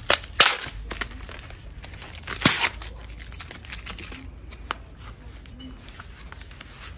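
White foam packaging wrap being torn and pulled apart by hand. Several sharp rips come in the first three seconds, the loudest about two and a half seconds in, then lighter crinkling as it is handled.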